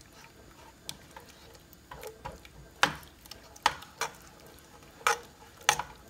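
A spoon stirring thick tomato gravy in a large pot: irregular light knocks and clicks of the spoon against the pot, with wet squelches of the sauce, sparse at first and more frequent from about two seconds in.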